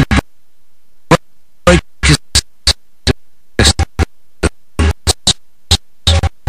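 Background music that keeps cutting in and out in short, irregular fragments, with gaps of silence between.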